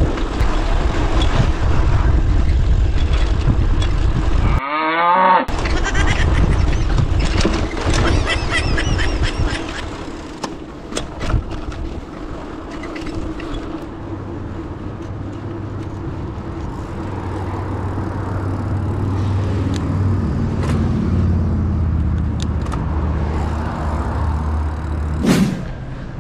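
Wind rushing over the microphone of a camera on a moving bicycle, loudest in the first ten seconds, with road traffic alongside. A steady low engine hum comes in during the second half.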